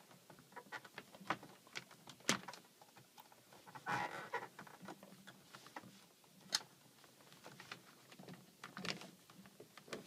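Handling noise from plastic water hoses and push-in fittings: scattered light clicks and taps, with a short scraping rustle about four seconds in.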